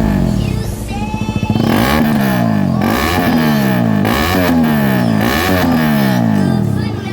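KTM Duke 200's single-cylinder engine revved through a big resonator with no muffler, loud: the throttle is blipped about six times, roughly once a second, the revs climbing sharply and falling back each time.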